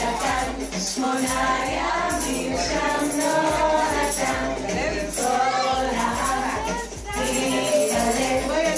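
A song with group singing over music, with jingling percussion.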